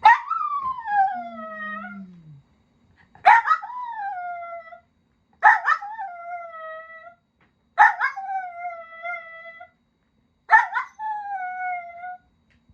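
Miniature dachshund howling, five drawn-out howls in a row, each starting with a sharp yelp and sliding down in pitch.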